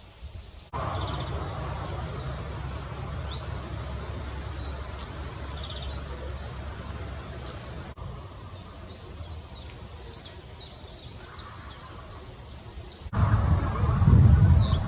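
Small songbirds singing, with many quick high chirps and short trills, over a low outdoor rumble that grows louder near the end.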